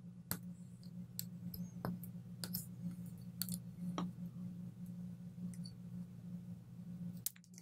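Scattered soft clicks and crackles of a fingernail picking at and peeling the clear protective plastic film off a wristwatch's crystal, over a faint steady low hum that stops near the end.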